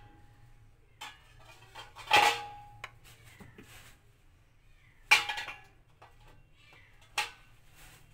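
Metal spoon clinking and scraping against a glass bowl while spreading melted dark chocolate: a few sharp clinks with a short ring, the loudest about two and five seconds in.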